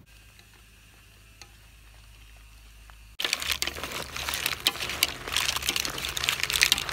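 Mussels stirred with a spatula in a metal wok of steaming broth: shells clattering against the wok and one another with a wet bubbling hiss, starting suddenly about three seconds in after a few faint clicks.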